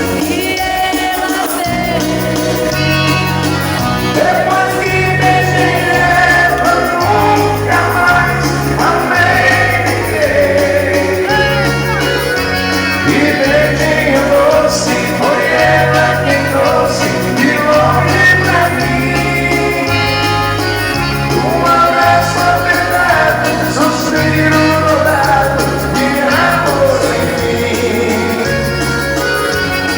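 A live dance band playing a waltz, with a singer over a bass line that moves from note to note.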